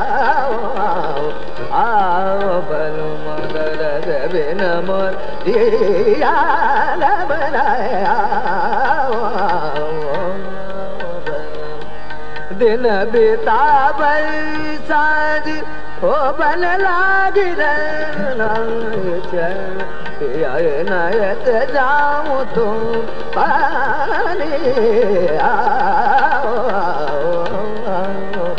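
Male Hindustani classical vocalist singing a khayal in Raga Yaman: long ornamented vocal lines that glide and waver in pitch, over a steady drone with tabla accompaniment.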